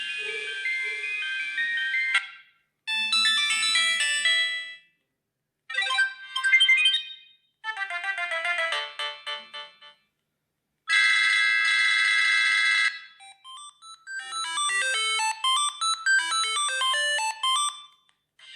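Siemens C75 mobile phone playing its ringtones one after another: six short electronic melodies, each lasting a second or a few seconds, separated by brief silences.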